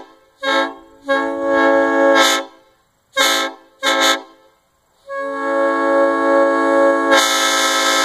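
Homemade PVC copy of a Nathan M5 five-chime air train horn, heard from about 100 feet, blown in a pattern: a short toot, a longer blast, two more short toots, then a long blast. The long blast turns brighter and slightly louder about two seconds in.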